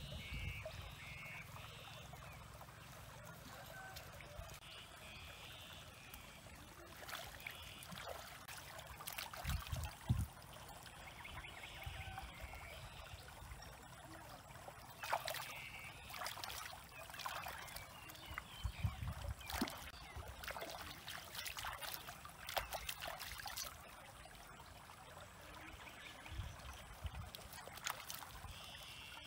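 Hands splashing and swishing in shallow stream water while rinsing vegetables, with water trickling and dripping in a run of short splashes.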